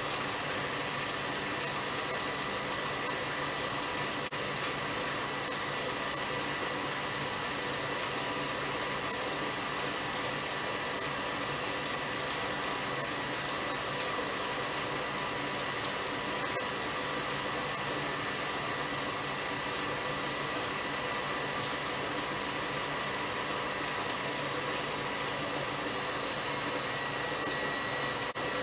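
Tilt-head stand mixer running steadily at high speed, its beater whipping butter and cold condensed milk into buttercream. A steady motor whir with a thin, high whine in it.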